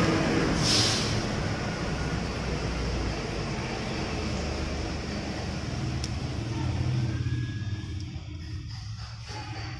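Road vehicle noise, a steady engine-and-tyre sound that slowly dies away, as of traffic passing by.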